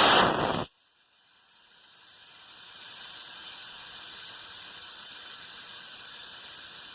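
A short, loud rush of hiss lasting under a second, cut off abruptly, then a steady, fainter hiss that fades in and holds.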